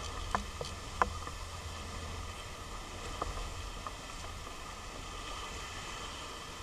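Heavy surf and surge churning over a rocky reef edge, heard muffled through a camera's underwater housing as a steady low rumble and hiss. A few sharp knocks cut through, the loudest about a second in.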